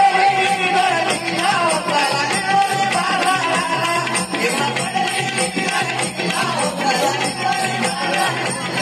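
Live naman gaulan folk music: a wavering sung melody over steady rhythmic percussion with a jingling, rattling beat.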